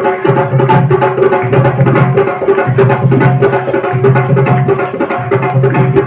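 Indian devotional music: drums beating a quick, steady rhythm under a held melodic note.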